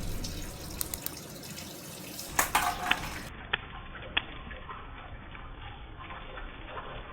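Packaging being handled: a few sharp clicks and a short crinkling burst about two and a half seconds in, with a couple more clicks after it.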